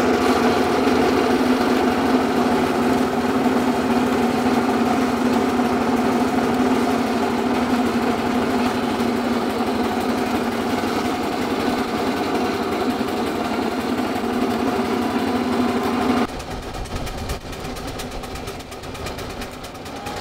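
Belt-driven circular saw bench running with a steady whine of several pitches as a log is fed into the blade. About sixteen seconds in, the sound drops abruptly to a quieter, lower rumble.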